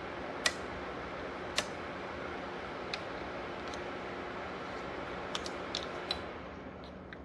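Small ceramic space heater's fan blowing with a steady rushing noise and a faint hum, with several sharp clicks or taps scattered through it. The noise eases off near the end.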